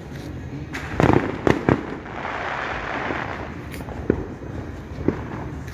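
Fireworks and firecrackers going off: a cluster of sharp bangs about a second in, then a stretch of hiss and a few scattered single pops.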